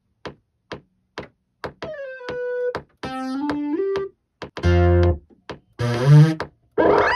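Electronic music played on a synthesizer over a steady click about twice a second; several synth notes slide up or down in pitch into the next note.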